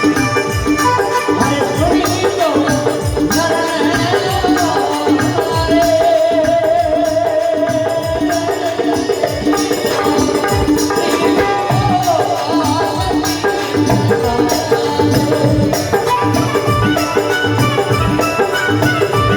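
Indian folk devotional music: steady drum strokes under a held drone, with a wavering melody line in the middle.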